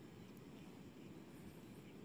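Near silence: faint, steady low outdoor background noise with no distinct sound events.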